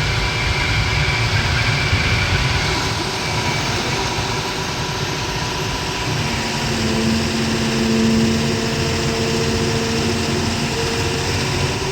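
John Deere 350G excavator's diesel engine running steadily under work. A steady whine comes in about halfway through and drops away near the end.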